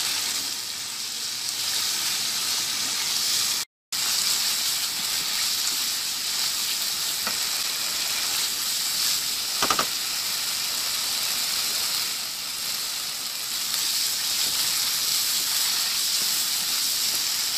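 Potato chunks frying in oil and masala in a nonstick karahi, sizzling steadily as they are stirred with a wooden spatula while the masala-coated potatoes are sautéed. The sound cuts out briefly about four seconds in, and there are two light clicks later.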